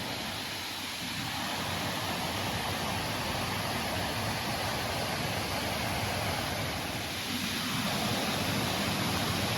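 Steady rush of a creek pouring over waterfalls, the water running high and rising with the rain.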